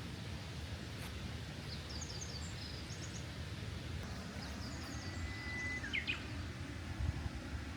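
Wild birds singing: several quick runs of high chirps, and one held whistle that ends in a quick downward flick about six seconds in, over a steady low background rumble.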